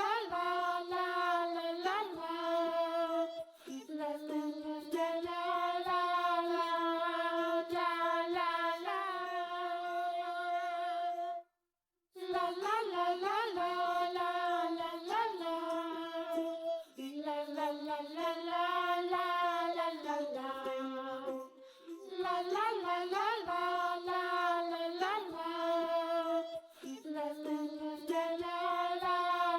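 Background music: a high, child-like voice singing a sustained melody, with a brief break about twelve seconds in.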